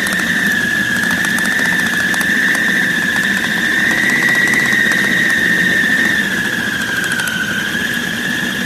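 Electric food chopper's motor running steadily with a high whine, blending chicken mince with spices and sauces; the pitch sags slightly near the end.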